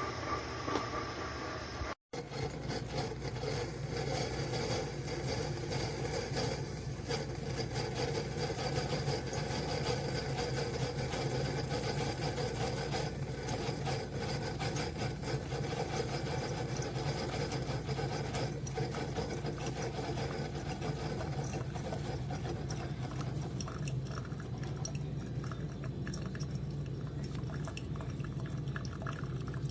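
Single-serve coffee maker running as it heats and brews: a steady low hum with a watery hiss over it. All sound cuts out for an instant about two seconds in.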